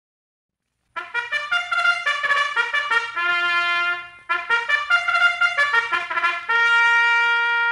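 Brass fanfare led by trumpets, the opening signature of a 1946 radio program. It starts about a second in with two quick phrases of short notes in harmony and ends on a long held chord.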